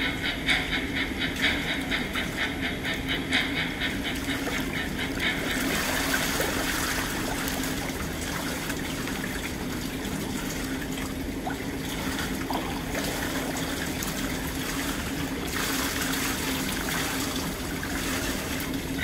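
Swimming-pool water splashing and lapping close to the microphone at the surface. For the first few seconds it comes in rhythmic pulses about twice a second, then turns into an even wash, over a steady low hum.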